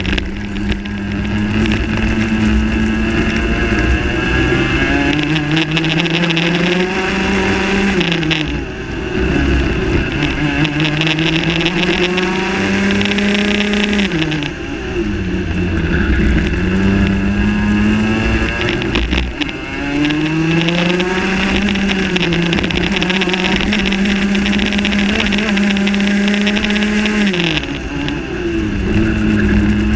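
Rotax Max 125cc single-cylinder two-stroke kart engine at full throttle, its pitch climbing steadily down each straight and falling sharply four times as the kart slows for corners, then pulling up again.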